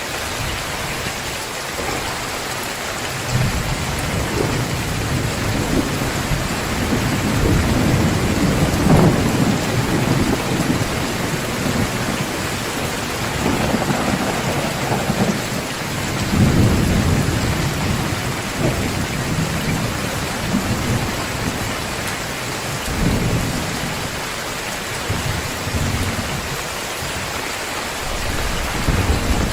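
Heavy rain falling steadily, a dense even hiss, with rolling thunder: several long low rumbles swell and fade beneath the rain, the strongest about a third of the way in and another just past the middle.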